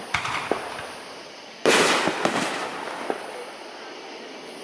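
Aerial fireworks bursting: a couple of sharp cracks, then one loud boom a little under two seconds in that rolls off slowly, followed by smaller crackling pops.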